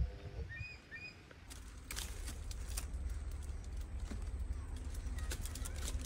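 A few short, high bird chirps about half a second in. From about a second and a half on come many crackles and rustles, like dry leaves and twigs, over a steady low rumble of wind or handling noise.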